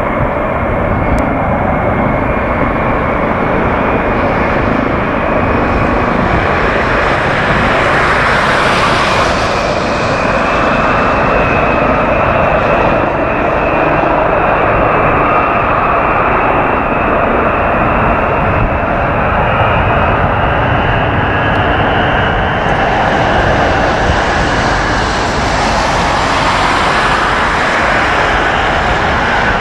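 Boeing E-8C's four jet engines running at taxi power: a steady, loud roar with a high whine that creeps slightly up in pitch, swelling twice as the aircraft rolls past.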